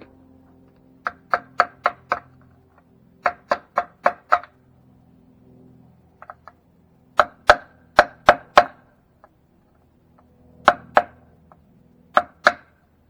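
Hammer striking metal in quick runs of sharp blows, about three a second: three runs of five, then two pairs, each blow ringing briefly.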